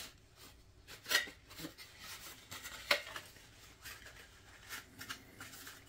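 Paper towel rubbing and rustling over a plastic model car body half, in soft, uneven scuffs with a couple of sharper ones.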